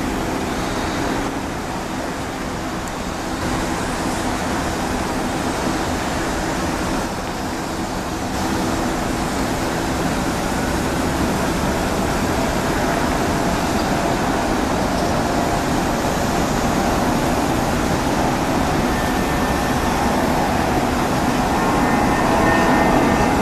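Airbus A319 jet engines running at taxi power, a steady rumble and hiss. A whining tone comes in and the sound grows a little louder over the last several seconds as the airliner taxis closer.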